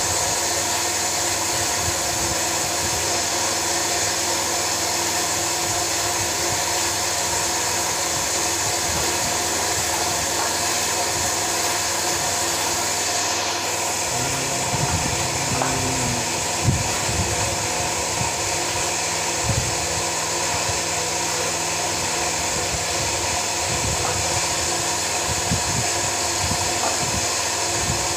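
A steady mechanical whir and hiss with a constant hum runs throughout. From about halfway in, irregular low knocks and scrapes of a hand tool working a wooden plank sound over it.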